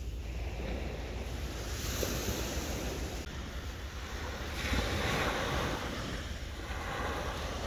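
Small waves breaking and washing up a sandy beach, with wind noise on the microphone. The surf swells louder about two seconds in and again around five seconds in.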